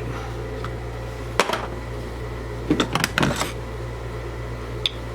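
A few sharp clicks and light knocks of small trimmer parts being handled: one about a second and a half in, a quick cluster around the middle, and one near the end. A steady low hum runs under them.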